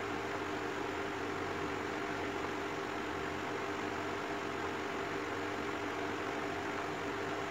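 Steady mechanical hum with a hiss behind it, unchanging in level and pitch.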